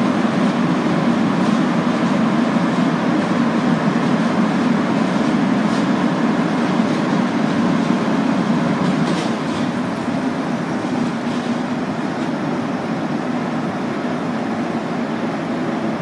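Inside a Montreal Metro Azur (MPM-10) rubber-tyred train running through the tunnel: a steady roar of tyres and running gear with a few faint clicks, getting a little quieter in the second half as the train slows into the station.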